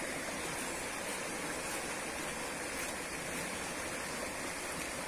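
River water running, a steady rushing sound.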